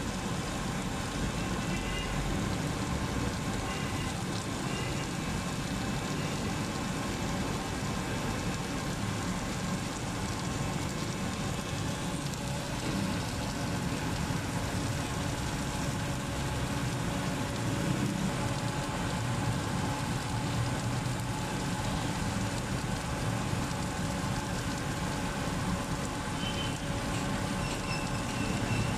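Steady noise at a takoyaki stall, with an even hiss over a low rumble and no distinct single event.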